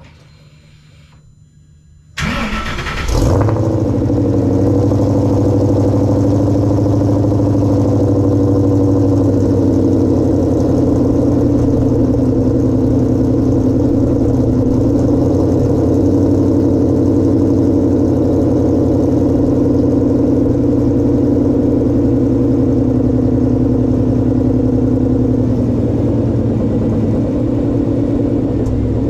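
2013 Ford Mustang GT's 5.0-litre V8 cranked and started about two seconds in, flaring briefly as it catches, then idling steadily.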